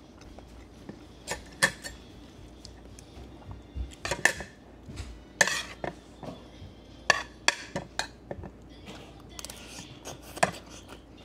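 Eating utensils clinking against dishes during a meal: a dozen or so short, irregular clinks with a brief ring.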